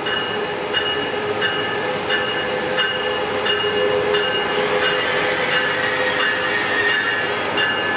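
Amtrak Pacific Surfliner passenger train with a Siemens Charger locomotive, running at the platform with a steady high squeal and a bell-like ding repeating about every 0.7 seconds.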